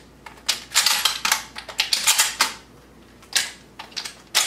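Dummy shotshells being pulled from a plastic belt carrier and thumbed into a shotgun's magazine tube through the loading port: a fast run of clicks and clacks in several bunches as the shells snap past the shell latch.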